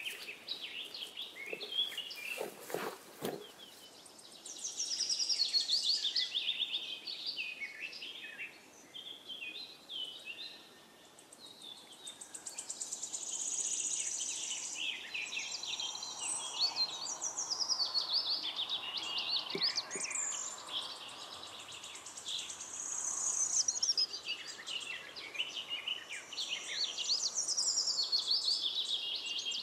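Small songbirds chirping and singing in many short, overlapping phrases, with a few brief knocks about two to three seconds in.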